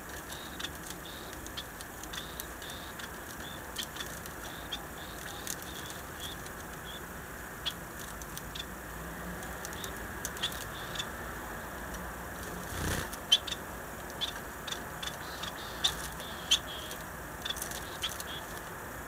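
Caged society finches giving short, soft calls again and again, with scattered sharp taps and clicks as they move about the cage; the taps are the loudest sounds. A brief flutter of wings comes about thirteen seconds in.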